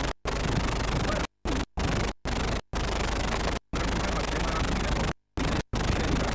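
Hiss and scratchy noise from a worn analogue camcorder tape, with a steady low hum underneath. It cuts out to dead silence about eight times in a few seconds, the dropouts of a damaged old recording.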